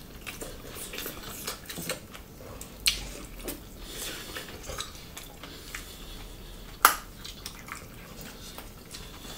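Eating sounds: fingers working food on ceramic plates, with soft wet mouth sounds and small clicks. A sharp click comes about three seconds in, and the loudest one about seven seconds in.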